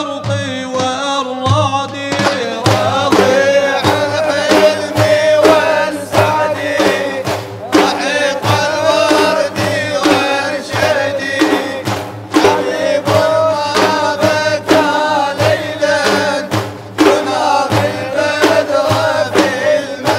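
Devotional madih singing: a man's voice chanting, joined about two seconds in by large frame drums struck by hand in a steady, driving rhythm, with the singing carrying on over the drumming.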